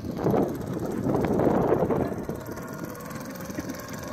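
Wind rushing across the microphone, loudest in the first couple of seconds, over the steady hum of a small boat engine running.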